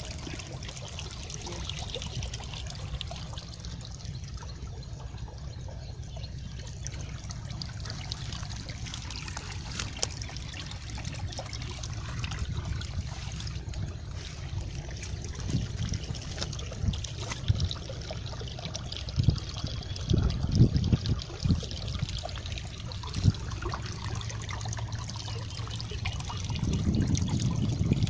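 Water trickling steadily along a shallow ditch between grassy field plots. Low thumps and rumbles come now and then in the second half, more of them near the end.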